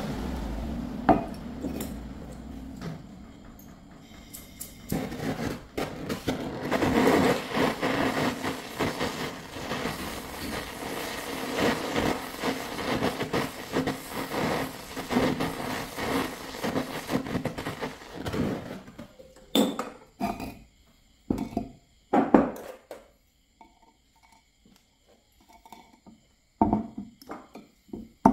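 Handheld gas torch flame running with a steady rushing hiss for about fourteen seconds while it heats a small wire fishing hook. Then comes a series of sharp hammer strikes on the hook, which rests on a wooden block; they are spaced irregularly, with a quicker run near the end.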